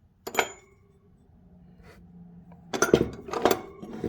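Steel hand tools clinking against each other as they are handled and set down: one ringing clink shortly after the start, then several quick clinks and knocks about three seconds in.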